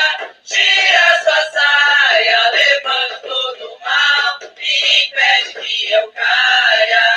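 Music with a voice singing in phrases, with held and gliding notes and short breaks between lines; the sound is thin, with no bass.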